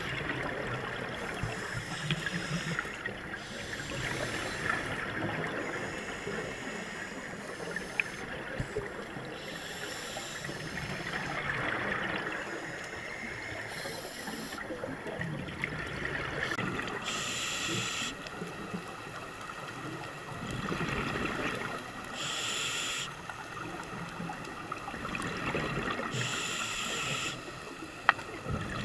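Scuba breathing heard underwater through a camera housing: regulator breaths with bursts of exhaled bubbles every few seconds over a steady watery hiss.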